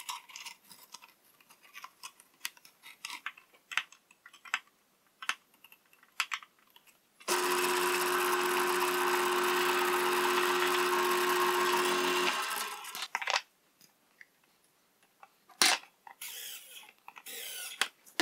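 Homemade 1-inch vertical strip sander with a freshly fitted sanding belt: after several seconds of small clicks and handling noises as the belt goes on, the sander's motor and belt run for about five seconds with a steady hum. It is then switched off and dies away over about a second. A few more short clicks and handling noises follow near the end.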